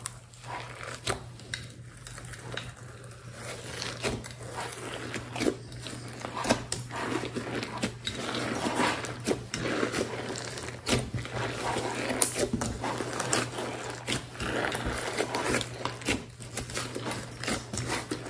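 Slime mixed with foam beads being squeezed, stretched and folded by hand in a glass dish: wet squishing with many sharp clicks and pops.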